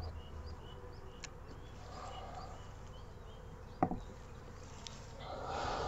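Honeybees buzzing around an open nucleus colony box, a steady hum that grows louder near the end. A single sharp knock about four seconds in.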